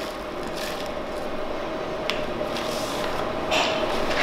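Paper packet of dried ginger rustling as a measuring spoon scoops from it, with a few short, scattered rustles and taps over a steady faint hum.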